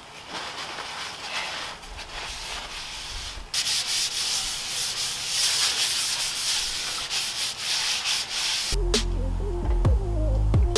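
Paper towel scrubbed back and forth over a concrete floor, wiping up spilled oil; the scrubbing gets louder about three and a half seconds in. Near the end it gives way to background music with a bass line.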